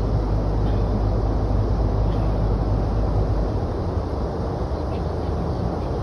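Tour boat's engine running steadily, a low hum under a steady rushing noise; the deepest part of the hum falls away about three and a half seconds in.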